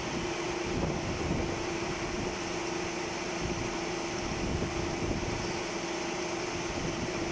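Steady machine-shop running noise: a constant hum with one held tone over an even rush of noise.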